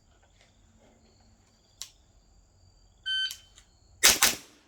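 A shot timer's electronic start beep, then about a second later rapid rifle shots in quick succession, the loudest sound, from an AR-pattern rifle fitted with a .22 conversion kit.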